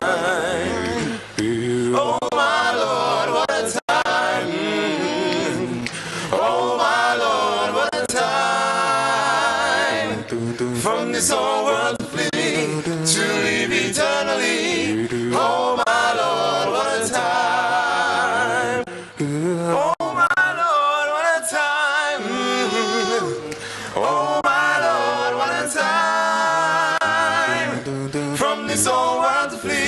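Men's a cappella gospel group singing in close harmony into microphones. The held notes waver with vibrato, with a few brief breaths between phrases.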